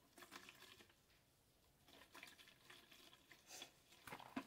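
Faint liquid swishing with a few light ticks: orange aniline dye powder being mixed into alcohol to dissolve it.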